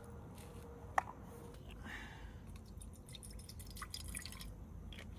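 Faint sounds of rice being readied in a camp cooking pot: one sharp metallic clink about a second in, then light water drips and a cluster of small ticks.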